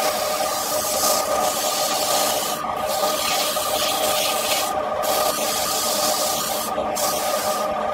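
Wood lathe running with a steady hum while sandpaper is held against the spinning wooden workpiece, making a continuous rubbing hiss. The hiss drops out briefly several times.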